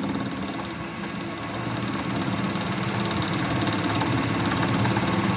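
A machine or power tool running steadily with a fast, even rattle over a low hum, growing a little louder.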